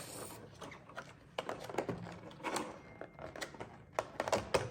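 Hands working at a card set's packaging, irregular clicks, taps and short rustles, while trying to free a coin that stays stuck in the box.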